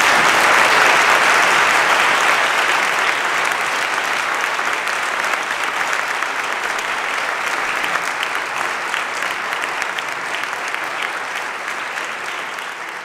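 Audience applauding in a large lecture hall: the clapping swells within the first second, then slowly fades.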